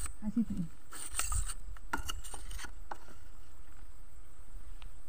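Quiet outdoor background: a low rumble on the microphone, with a few faint clicks scattered through.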